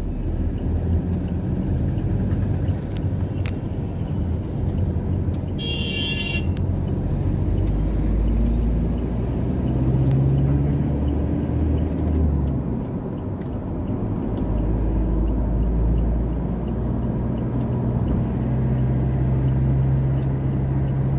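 Continuous low rumble of a motor vehicle's engine and road noise, its pitch shifting slowly. A brief high-pitched tone sounds about six seconds in.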